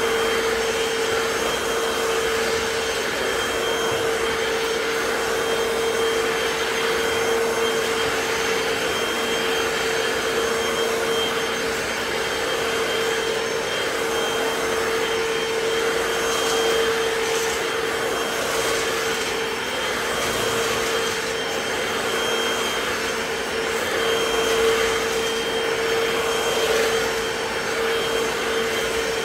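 Hoover FloorMate wet hard-floor cleaner running steadily while pushed back and forth over a laminate floor. Its suction motor gives a constant hum with a thin high whine above it, swelling slightly with the strokes.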